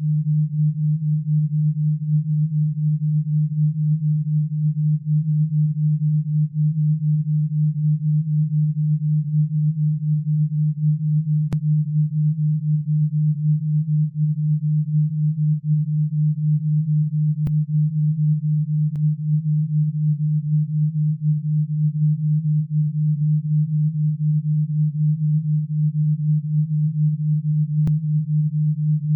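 Low, steady pure tone with a fast, even pulse in loudness: an alpha-wave brainwave tone played for tinnitus relief. A few very faint clicks sit beneath it.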